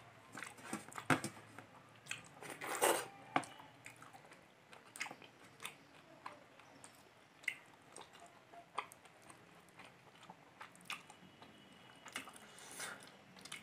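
Close-up chewing and mouth sounds of a person eating fish curry and rice by hand: irregular soft clicks, smacks and crunches, busiest about three seconds in.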